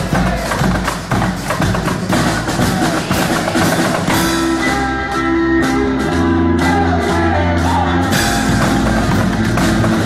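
Rock band music with electric guitars and drums. Heavy drumming for the first few seconds gives way to held guitar chords about four seconds in, and the heavy drumming comes back about two seconds from the end.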